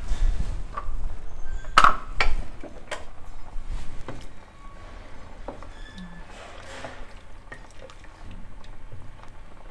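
A wooden spatula knocking and scraping against the inside of a metal pressure cooker while stirring boiled pork leg in broth. Two sharp knocks come about two seconds in, then softer stirring and occasional light taps.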